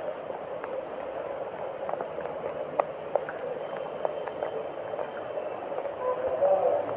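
Running water, a steady rush with scattered faint clicks.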